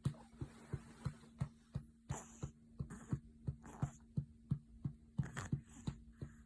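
Hand patting a baby's back to bring up a burp after feeding: soft, even pats about three a second, with a few short rustles between them and a faint steady hum underneath.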